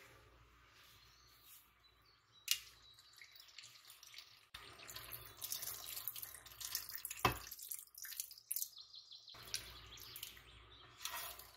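Water running and splashing, like a kitchen tap into a sink, with two sharp knocks about five seconds apart.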